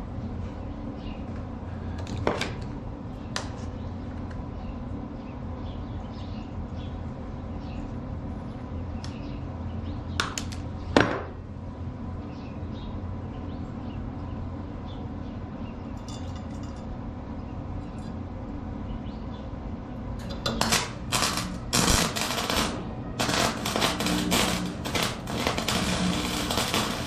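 Scattered metallic clinks and knocks over a steady low hum, then a dense, irregular crackling and clatter from about twenty seconds in.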